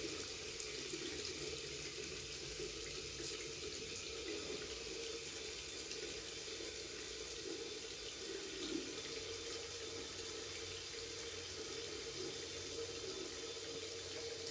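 Water running steadily from a tap into a sink, a continuous even splashing.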